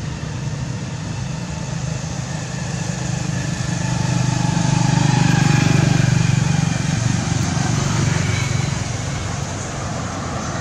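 Low engine drone of a motor vehicle, growing louder about four seconds in, at its loudest around six seconds, then easing off.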